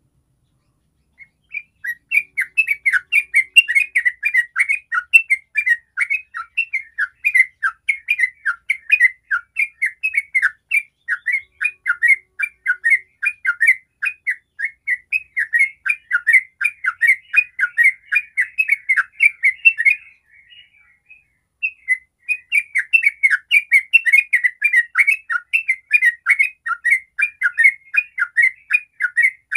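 Yellow-vented bulbul singing its rolling 'ropel' song, a fast, unbroken run of chirping notes at about four a second. The song starts about a second in, breaks off for under two seconds about twenty seconds in, then carries on.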